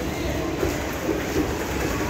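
Indian Railways sleeper-class passenger coaches rolling past: steady running noise of steel wheels on rail.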